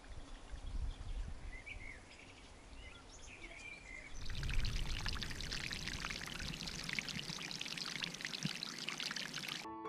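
Birds chirping faintly over a low rumble, then from about four seconds in, water trickling and splashing down a mossy rock cascade.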